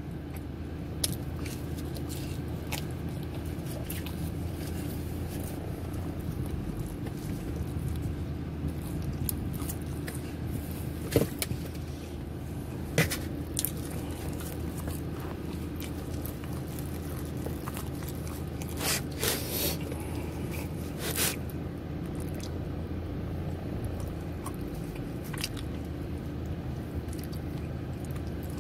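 Steady low hum with a few short, sharp clicks and scrapes from handling and eating pepperoni pizza out of a cardboard box.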